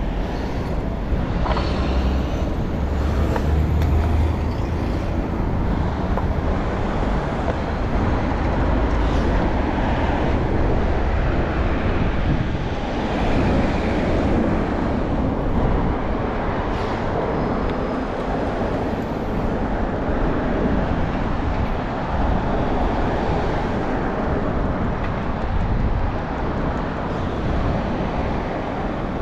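Street traffic heard from a bicycle on the move: a steady rush of road noise with a deep rumble and passing vehicles.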